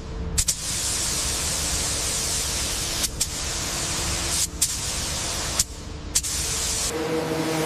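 A pressurised spray hissing in long stretches, cut off briefly about half a second in, at about three seconds, about four and a half seconds and about six seconds, with a click at each stop and restart.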